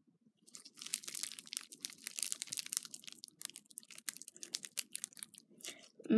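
Pink beaded slime being pulled and stretched by hand, giving a dense run of crackles and small pops that starts about half a second in.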